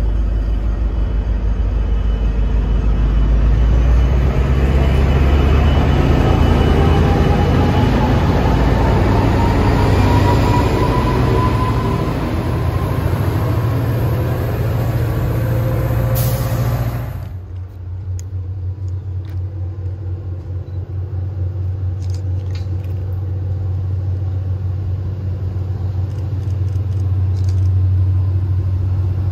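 Diesel commuter locomotive, an EMD F40PH, working hard as it moves its train off along the platform: a loud low rumble whose engine pitch rises slowly. After an abrupt cut, a distant train gives a steadier, quieter low drone.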